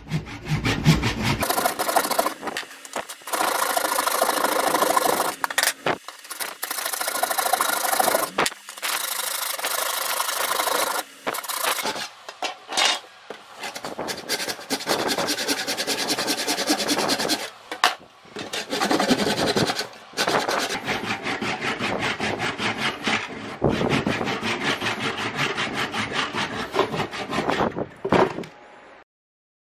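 Handsaw crosscutting a block of chengal, a very hard wood: fast back-and-forth rasping strokes in runs, broken by several short pauses, stopping shortly before the end.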